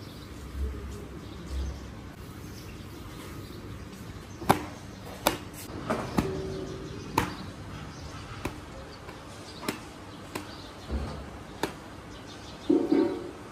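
Steady street background noise with a scattered series of sharp clacks and knocks, about ten of them over the second half, and a brief louder pitched sound near the end.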